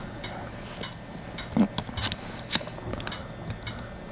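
A few small, sharp clicks as the electric blanket control unit's rotary switch is worked back and forth between on and off with fingers and tweezers. The switch has a bad internal connection and does not conduct in either position.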